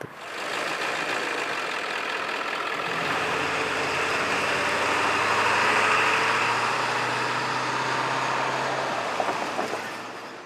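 Steady motor-vehicle engine noise with a low hum, fading out near the end.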